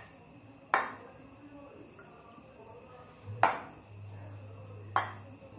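Steel spoon knocking against a stainless steel bowl while homemade butter is pressed and scraped in it, three sharp knocks: about a second in, about three and a half seconds in, and near the end. A faint steady high tone and, from about halfway, a low hum sit underneath.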